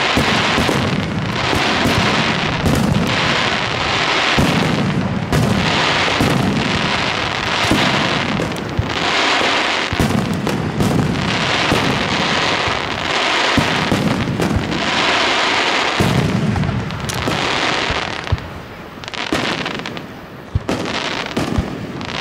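Aerial fireworks shells bursting one after another in a rapid star mine sequence: deep booms every second or two, each followed by a lingering crackle. Over the last few seconds the bursts thin out into separate, sharper bangs.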